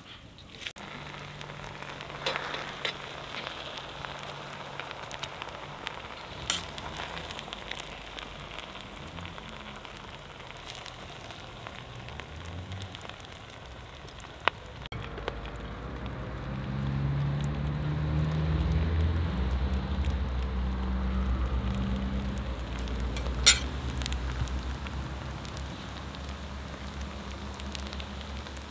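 Hissing and crackling from the hot pilaf and the fire under the cast-iron kazan while the pilaf is scooped out with a metal skimmer, which clicks and scrapes against the pot now and then, once sharply near the end. About halfway through a low steady hum comes in under it.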